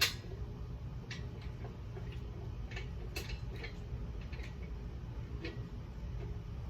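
Scattered light clicks and taps of hand work on the engine, about a dozen at irregular intervals, with a sharper one right at the start, over a steady low hum.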